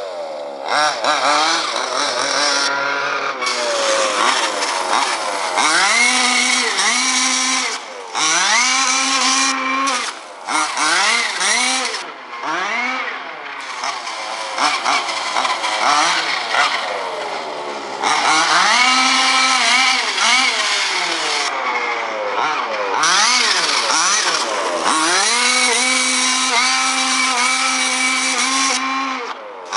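30.5 cc reed-case two-stroke engine of an MCD Evo3 Ultimate RC buggy, revving up and dropping back again and again as it is driven, with several holds at high revs lasting a few seconds. The carburettor is set far too rich, which the owner says can be heard.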